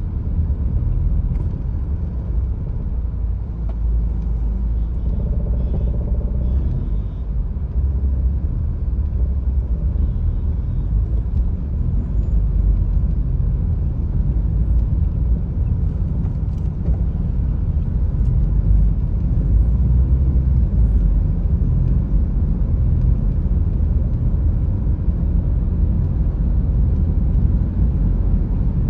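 Steady low rumble of a car's engine and tyres on the road, heard from inside the cabin while driving in highway traffic.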